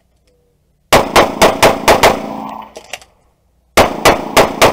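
Open-division competition pistol with a red-dot sight firing rapid strings: six shots about a quarter second apart starting about a second in, then a pause of about a second, and another fast string beginning near the end.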